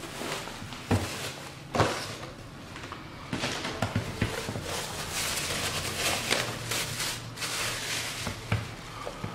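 Handling noise from unpacking: two sharp knocks early on, then a clear plastic bag crinkling and rustling for several seconds as it is pulled off a portable air compressor.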